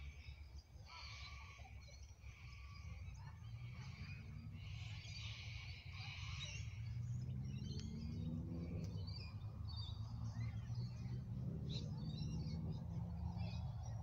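Birds calling and chirping, with repeated phrases in the first half and scattered chirps later. A low rumble grows louder through the second half.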